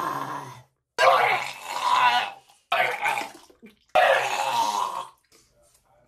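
A man retching and gagging over a toilet in about four rough, throaty heaves of a second or so each: his stomach rejecting the raw onion he has just eaten.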